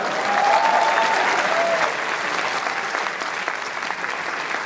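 Audience applauding, a dense patter of clapping that eases off slightly toward the end.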